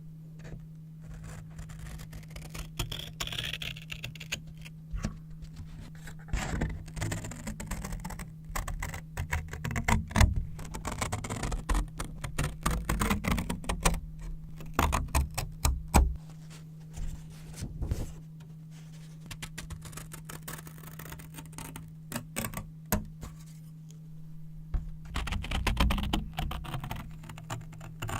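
Scissors cutting brown paper: a long run of crisp snips with paper crackling between them, over a steady low hum.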